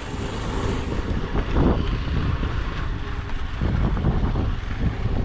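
Wind buffeting the microphone over the low rumble of a moving vehicle.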